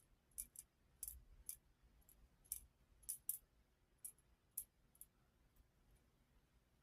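Faint, irregular light clicks and ticks, roughly two a second, as dried gold is tapped out onto a small digital scale for weighing.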